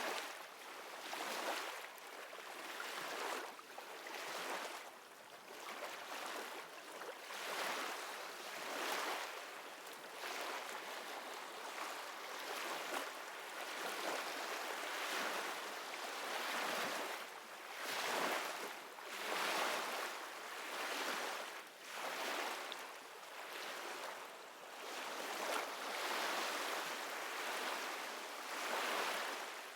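Recorded ocean waves washing on a shore, a hissing surf that swells and fades every second or two.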